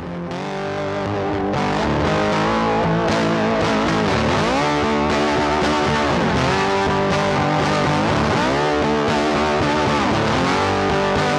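Background rock music led by a distorted electric guitar, with bent notes, fading in over the first second or so.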